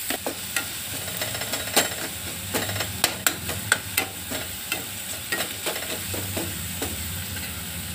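Chopped onion and green capsicum sizzling in oil in a kadhai, with a steel spoon scraping and clicking against the pan as the vegetables are stirred. The clicks come irregularly, thickest in the first half.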